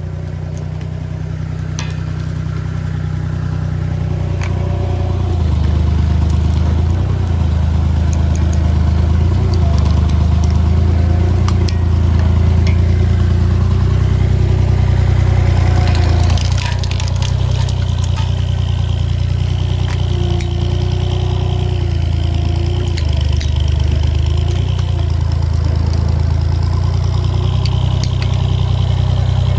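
Road roller's engine running steadily under load, with scattered sharp cracks and clatter, most of them about halfway through.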